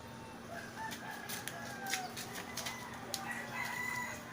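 Roosters crowing in the background, several long drawn-out calls overlapping, with a few sharp clicks.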